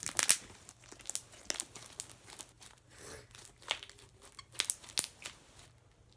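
Homemade slime being squished and handled, making irregular crinkling crackles and small pops.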